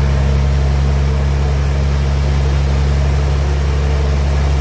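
Sawmill band saw machinery running with a steady, loud low drone that does not change.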